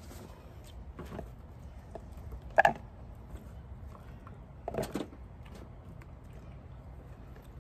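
Light handling clatter of a clear plastic cup and chopped potatoes on a wooden cutting board. There is a sharp clack about two and a half seconds in and a smaller knock about two seconds later.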